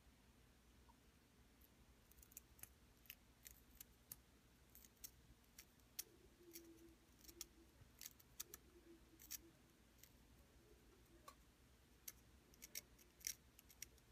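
Faint, irregular little clicks and snips of a hobby knife blade paring away the plastic of a Denon DL-103 phono cartridge, a little at a time, starting about two seconds in and coming thickest near the end.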